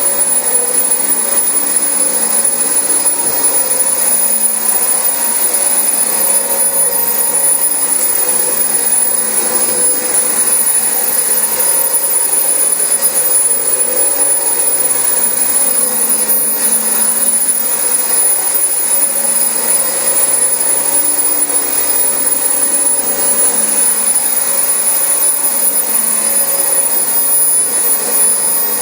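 Dyson DC25 upright vacuum cleaner running steadily over carpet, a continuous motor whine and rush of air.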